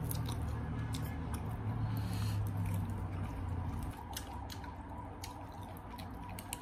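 Chopsticks clicking against the food and takeout containers while eating, a scatter of short light clicks, over a low steady rumble that drops away about four seconds in.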